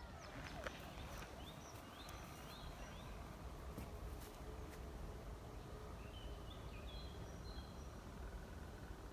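Small birds chirping in a forest: three quick hooked chirps about two seconds in, then a few short higher notes about six to seven seconds in, over a faint steady background. There are a couple of faint clicks near the start and about four seconds in.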